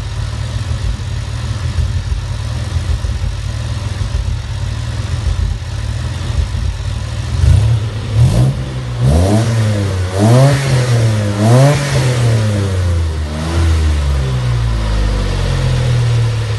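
DeLorean DMC-12's PRV V6 running through a stainless free-flow exhaust, idling steadily, then revved in a series of quick throttle blips about halfway through before settling back to idle.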